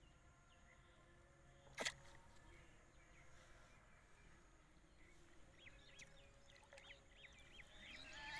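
Near-silent outdoor ambience with a single sharp click about two seconds in, and faint repeated high chirps over the last few seconds.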